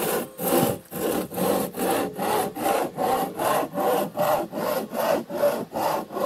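Hand saw cutting wood in steady back-and-forth strokes, about two and a half rasping strokes a second.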